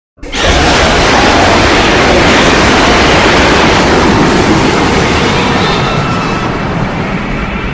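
King Ghidorah film sound effect: a loud, dense rushing noise like a blast or storm that starts abruptly, holds steady, then slowly fades.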